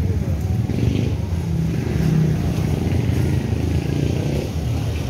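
Motorcycle and tricycle engines running in street traffic close by, a steady low rumble.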